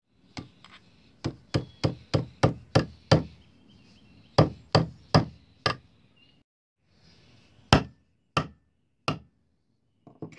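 Hammer striking a nail through the sheath material into a wooden plank, punching the hole for an eyelet. About sixteen sharp blows in three runs: quick at first, about three a second, then slower and more spaced out near the end.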